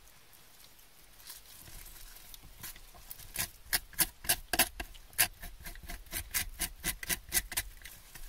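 Leftover flesh being scraped off the backbone of a filleted isaki (threeline grunt) on a cutting board. The strokes are short and rasping, a few at first, then from about three seconds in a fast run of three or four a second.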